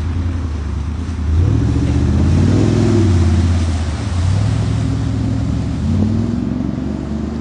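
Vehicle engine revving hard in repeated surges while driving through a mud pit, its pitch climbing about a second in and again around four and six seconds.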